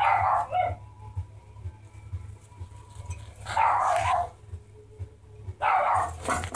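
Amazon parrot calling out loudly three times, each call under a second and a few seconds apart.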